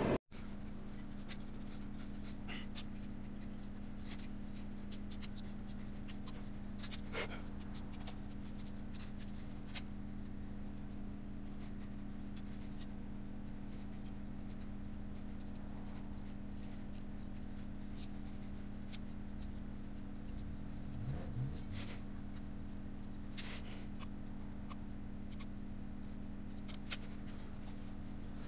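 Steady low hum with scattered faint clicks and taps from gloved hands handling a MacBook Pro logic board and its battery flex cable.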